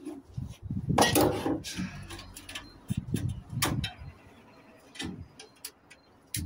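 Hands pulling at the wiring and metal fittings inside an opened gas boiler being stripped for scrap: scattered clicks, knocks and low thuds, with a scraping metallic rattle about a second in.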